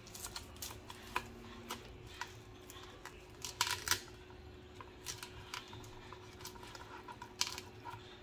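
Knife and fork cutting through crispy air-fried pork belly on a plastic cutting board: scattered crackles and clicks from the crisp skin and the blade meeting the board, louder in the middle and near the end, over a faint steady hum.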